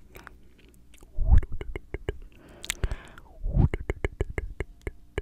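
Tongue clicks and wet mouth sounds right at a microphone: quick runs of sharp clicks, with two louder, deeper pops.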